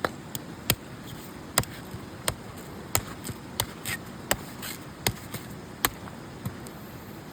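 An old coconut's hard shell being knocked, giving a series of sharp hollow knocks, roughly one every 0.7 s, with fainter taps in between.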